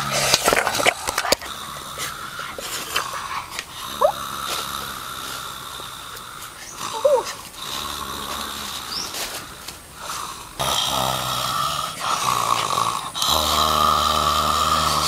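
A young man groaning in long, rasping, drawn-out moans, as if in pain. The moans grow louder about two-thirds of the way through and are loudest near the end.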